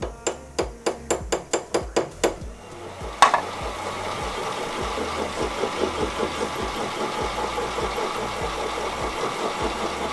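About nine quick, evenly spaced clicks, then a single sharp clank about three seconds in, after which a benchtop metal lathe runs steadily with a fast, even pulse.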